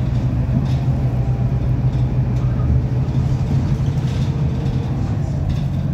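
Double-decker bus engine and drivetrain heard from inside the upper deck while driving: a steady low drone with road noise. The uploader says it doesn't sound right and suspects an engine or gearbox issue.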